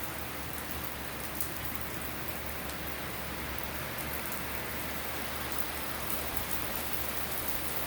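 Steady rain from a thunderstorm, falling evenly throughout, with faint scattered drip ticks.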